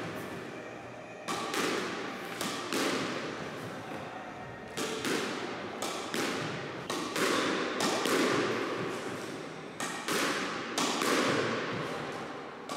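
A squash ball struck by a racket and hitting the front wall, side wall and wooden floor while forehand nicks are played: a series of sharp hits and thuds, one every second or two, each ringing out in the court's echo.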